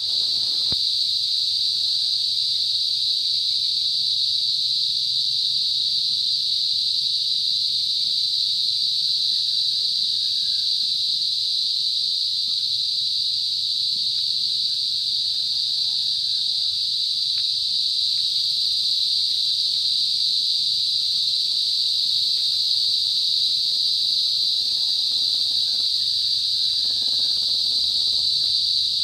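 Crickets chirping in a dense chorus that merges into one continuous high-pitched trill, holding steady without a break.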